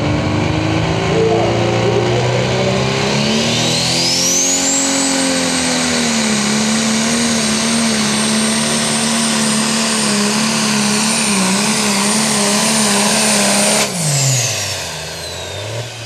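Modified John Deere pulling tractor's turbocharged engine running at full throttle under load while pulling the sled, its high turbo whine rising over a couple of seconds and then holding. Near the end the throttle comes off: the engine note drops sharply and the whine falls away.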